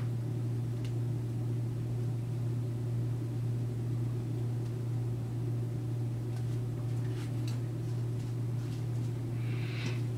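A steady low hum, unchanging throughout, with a few faint handling rustles and clicks toward the end.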